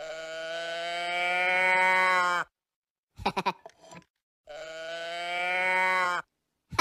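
Cow-spotted moo box, the tip-over noise-maker toy, mooing twice: two long moos of about two and a half seconds each, the second starting about four and a half seconds in, each dropping in pitch as it ends.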